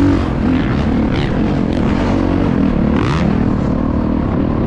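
Dirt bike engine ridden up a dirt trail, heard up close from the bike itself, its pitch rising and falling with the throttle.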